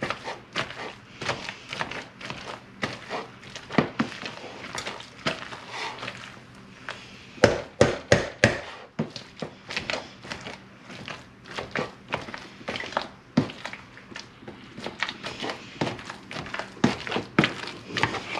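Metal wire potato masher mashing boiled red potatoes in a stainless steel pot: irregular clanks and knocks of the masher against the pot, a few a second, with a run of louder strikes about eight seconds in.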